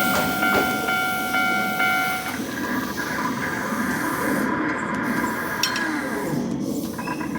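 Hankyu electric train running along the rails, with a steady ringing electronic tone over the rumble that changes pitch about two seconds in and fades out near the end.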